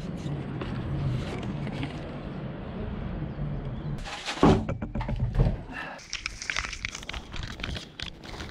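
Wooden planks being handled, with two loud knocks of board on board about halfway through, then light rustling and clicks.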